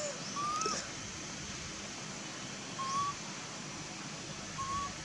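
Three short, clear whistle-like animal calls, each a single slightly rising note, about two seconds apart, over a steady high hiss.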